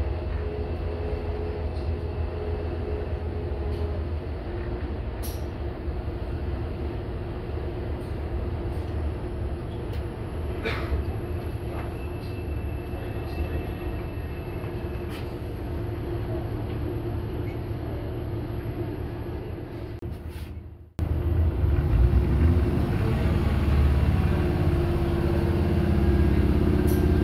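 Diesel passenger train running along the track, with a steady rumble of engine and wheels and an occasional click. About 21 s in, the sound drops out for an instant and comes back louder.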